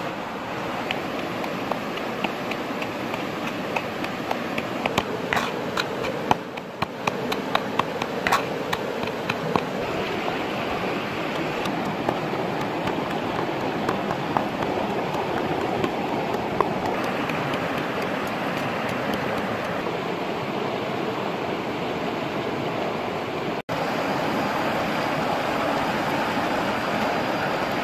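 Shallow stream rushing over rock, a steady hiss of water. A run of sharp clicks and taps comes about five to nine seconds in, and the sound drops out for an instant about two-thirds of the way through.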